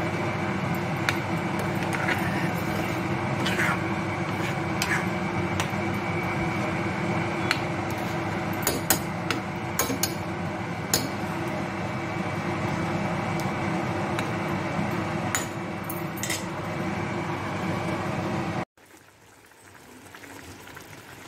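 A spoon stirring curry in a kadai, clinking and tapping against the pan now and then, over a steady fan-like hum. The hum cuts off suddenly near the end, leaving a much quieter background.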